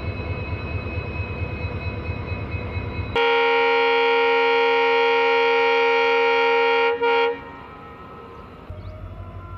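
WDP4D diesel locomotive's engine running with a steady whine and low throb as the train moves off. About three seconds in, a locomotive horn sounds one long, loud blast of about four seconds, followed by a short toot.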